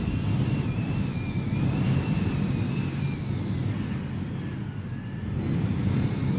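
Hurricane wind roaring steadily against the house, with a thin high whistle that wavers in pitch and fades out about three and a half seconds in.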